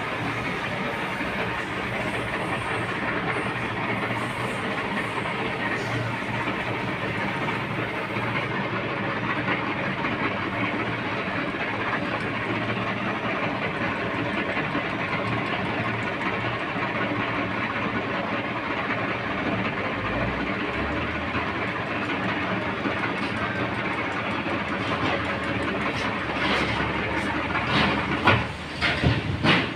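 Metal lathe running steadily while turning an outboard motor's engine block: a continuous mechanical hum with a hiss of cutting. A few sharp clanks near the end.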